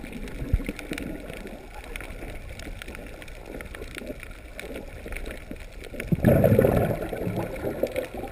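Underwater ambience heard through a camera held below the surface: muffled water noise with faint crackling clicks, and a louder, low surge about six seconds in.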